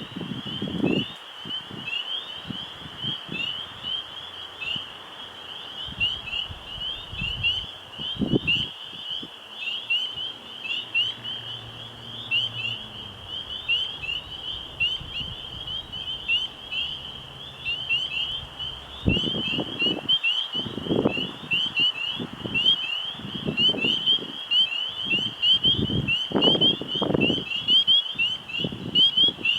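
A dense chorus of frogs calling at night: many high, short peeping calls overlapping without a break. Irregular low rushes of noise come and go beneath it, more often and louder in the second half.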